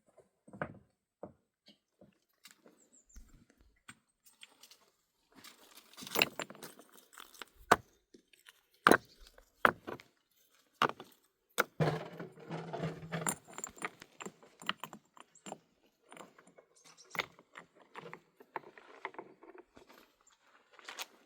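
A series of irregular sharp knocks and clinks of hard objects being handled and struck together, busiest in the middle and again near the end.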